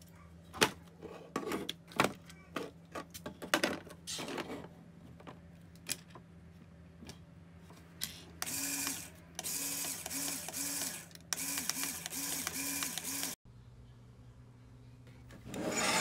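Light clicks and knocks of small plastic Lego parts being handled. About halfway through, a small Lego electric motor runs in short pulses, a couple a second, for about five seconds, then cuts off suddenly.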